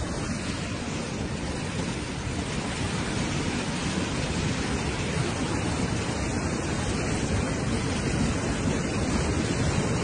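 Steady rushing roar of a mudflow, a torrent of muddy water carrying rocks, with rain falling.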